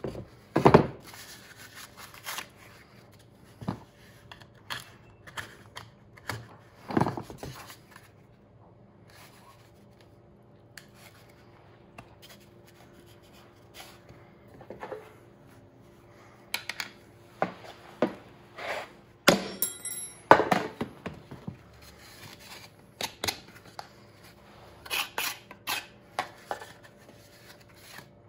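Irregular scraping and cutting on the foam legs of a coyote taxidermy form as the mold flanges are trimmed off, with a few sharper knocks and a quieter pause partway through.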